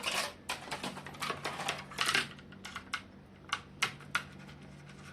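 Irregular light clicks, taps and clinks of small hard parts and a hand tool being handled on a laptop's motherboard and heatsink, closely spaced at first and thinning out to a few single clicks.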